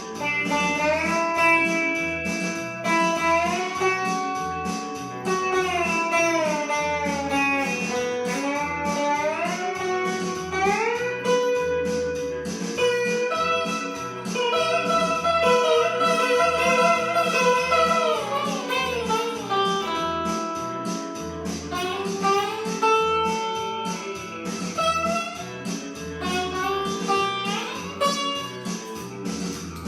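Blues guitar instrumental: a lead guitar line whose notes slide up and down, over a steady repeating bass pattern.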